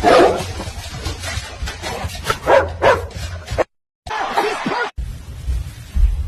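Dog barking: a loud bark at the start, then a quick run of three barks. The audio drops out twice, with abrupt cuts between short clips, and one brief segment holds a wavering, higher dog vocalisation.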